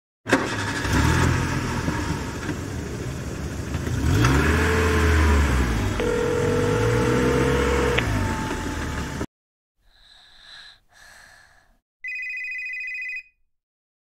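Street traffic sound effect: car engines running and revving, with a long steady tone about six seconds in, cutting off abruptly about nine seconds in. Near the end comes a single electronic telephone ring, about a second long, after two faint short tones.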